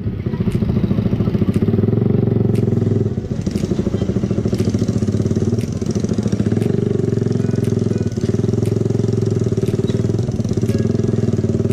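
Suzuki motorcycle's engine through an aftermarket Hi Speed open-type muffler, running steadily at low road speed with the throttle eased off briefly a few times.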